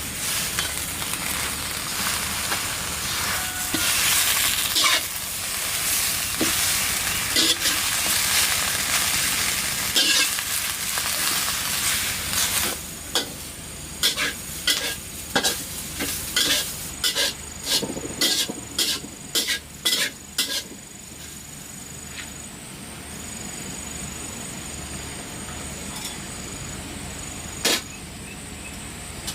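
Food sizzling in a pan while being stirred, with a run of sharp clicks and knocks like a utensil striking the pan about halfway through, then a quieter steady hiss.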